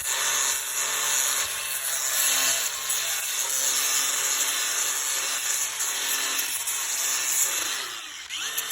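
Large electric power sander running under load against deck wood: a steady loud grinding hiss over a constant motor hum. It drops off briefly near the end.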